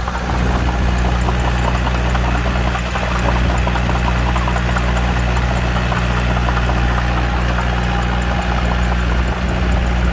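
Small Komatsu D21P bulldozer's diesel engine running steadily, with a busy clatter of quick clicks and rattles over the low engine note.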